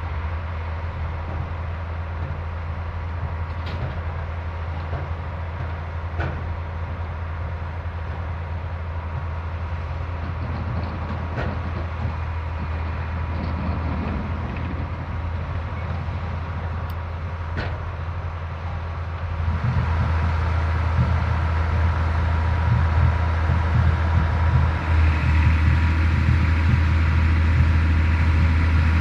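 Vintage tractor engine running steadily with a low hum, growing louder about two-thirds of the way through.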